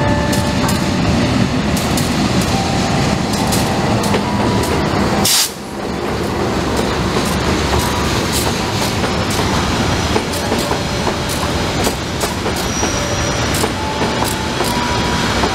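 Diesel-hauled passenger train rolling past at close range: its carriages rumble by and the wheels click over the rail joints in a steady clickety-clack. The sound dips sharply for a moment about five seconds in.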